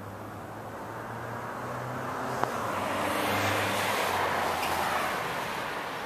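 A car passing on the street below: its tyre and engine noise swells, peaks a little past the middle, and fades, over a low steady city hum. There is one sharp click about two and a half seconds in.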